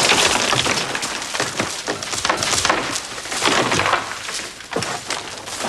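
A loud, dense clatter of crashing and breaking, with many sharp knocks one after another, heaviest in the first few seconds.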